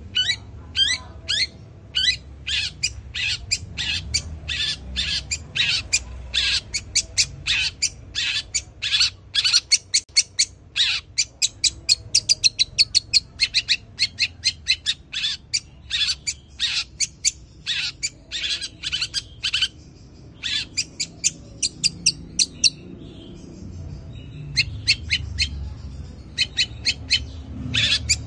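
Long-tailed shrike (cendet) calling in fast runs of short, sharp, harsh chirps, about three or four a second, which break off for a few seconds about two-thirds of the way through and then resume.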